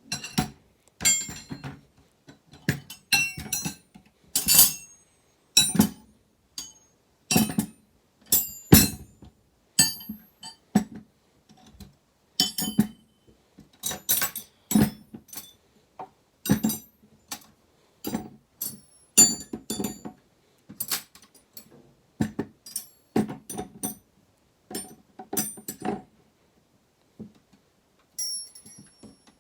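Steel wrenches clinking and clicking one after another as they are pushed onto wrench organizer racks and set down in a metal toolbox drawer, some strikes ringing briefly.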